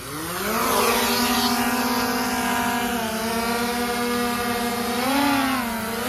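DJI Air 2S drone's motors and propellers spinning up, rising in pitch over the first second, then holding a steady hum, with the pitch swelling and dipping about five seconds in.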